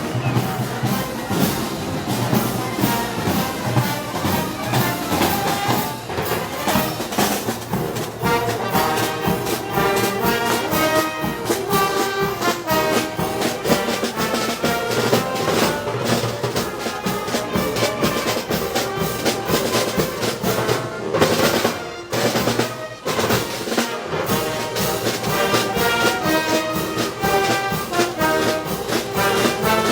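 Brass band playing Moros y Cristianos festival music: trumpets and trombones carrying the tune over a steady drum beat.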